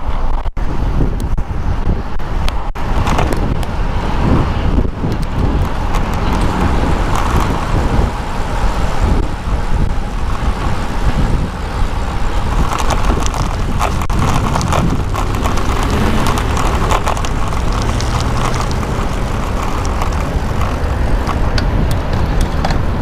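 Wind rushing over the microphone and passing road traffic during a bicycle ride, a steady loud rush heaviest in the low end.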